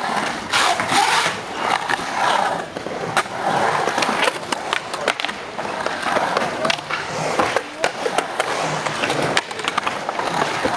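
Skateboard wheels rolling on the smooth concrete of a skate bowl, a steady rolling noise broken by many short clicks and knocks of the board.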